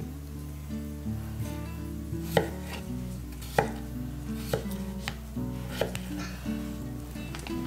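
Kitchen knife cutting peeled raw potatoes into chunks on a wooden cutting board, the blade knocking on the board in a series of sharp, irregular strokes roughly once a second.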